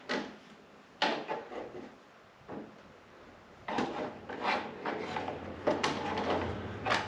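Parts and tools being handled during snowmobile reassembly: scattered knocks, clacks and rubbing scrapes, a few at first and more frequent in the second half.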